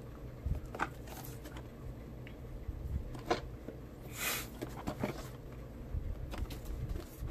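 A cardboard phone box handled and turned over in the hands: scattered light taps and rubs, with a short scrape of cardboard about four seconds in.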